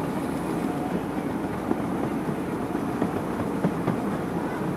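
A ride-on miniature train rolling along its track, heard from aboard: a steady rumble with a few sharp clacks from the wheels on the rails.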